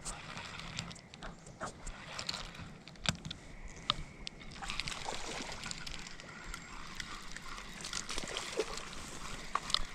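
River water sloshing and gurgling, with scattered small clicks and knocks through it.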